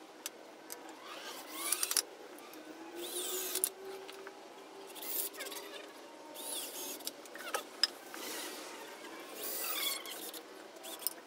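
Cordless drill driving screws into wooden boards in several short bursts, each a fraction of a second to about a second long, with the motor whining as it spins.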